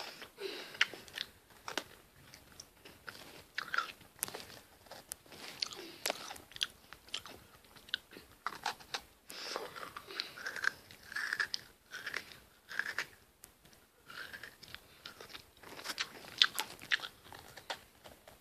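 Oreo sandwich cookies being bitten and chewed close to the microphone: irregular sharp crunches and wet mouth noises.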